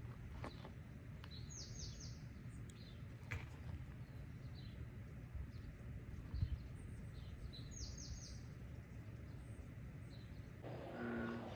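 Small birds chirping faintly, with a quick run of high descending notes twice, over a steady low rumble. Near the end, a pulsing low sound with a few fixed pitches starts, repeating about once a second.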